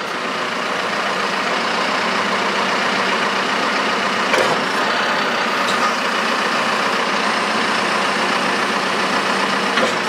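John Deere 310SL backhoe loader's diesel engine running with the hydraulics working as both rear stabilizers are lowered: a steady drone that swells slightly over the first couple of seconds, then holds level.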